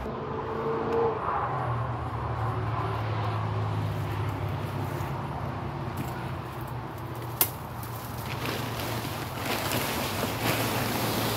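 Steady low hum under the scene, with a single sharp click about seven seconds in, then rustling and handling noise from a tarp and brush as someone moves against them near the end.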